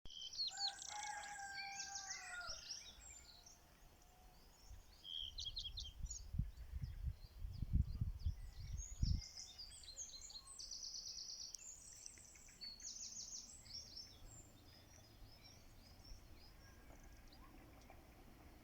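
Small songbirds chirping and trilling throughout, over a rooster crowing once at the start. About six seconds in, a few seconds of loud low rumbling thumps, like wind buffeting or handling noise on the microphone.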